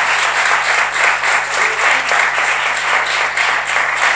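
Audience applauding, a dense, steady clapping at a loud level.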